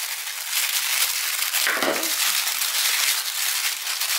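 Pink tissue paper crinkling and rustling steadily as it is unfolded from around products.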